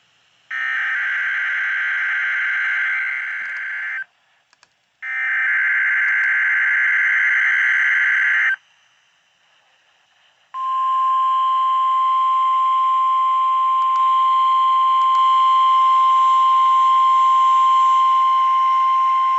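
NOAA Weather Radio required weekly test signal over a radio receiver. First come two bursts of SAME digital header data, each about three and a half seconds long with a one-second gap between them. After a two-second pause comes the steady 1050 Hz warning alarm tone, which runs about nine seconds over a background of radio hiss.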